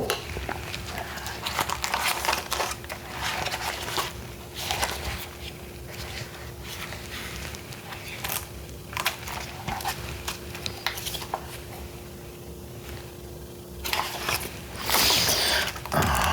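Packaging being handled: irregular crinkling, rustling and small clicks, with a louder, denser rustle near the end. A faint steady hum sits underneath until shortly before that.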